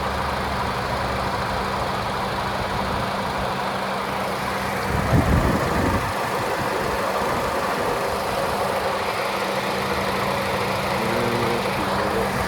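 Car engine idling steadily, with a short louder rush of noise about five seconds in.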